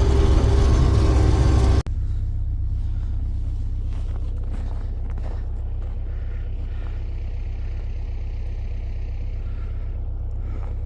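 A heavy vehicle's engine runs with a loud, steady drone. About two seconds in it breaks off abruptly, and a quieter steady low rumble carries on.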